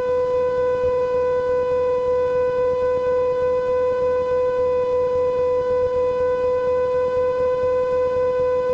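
A steady, reedy tone held at one unchanging pitch, cutting off suddenly at the end.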